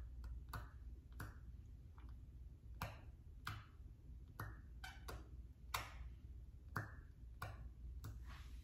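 Small silicone facial cup popping on and off the skin around the eye, a soft click each time the suction grabs or breaks, about one to two a second, some with a short falling squeak.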